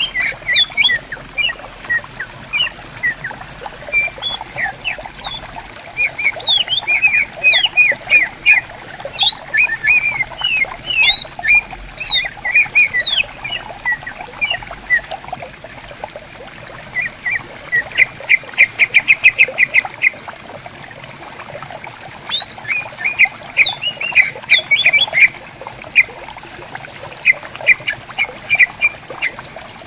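Green leafbirds (cucak ijo) singing to each other in quick, varied chirps and whistles, with a fast run of evenly repeated notes around the middle, over the steady babble of a shallow stream.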